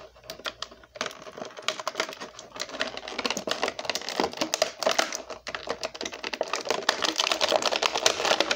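Clear plastic blister packaging crinkling and crackling in quick clicks as hands work a small action figure out of its tray. The clicks are sparse at first and turn dense and continuous from about a second in.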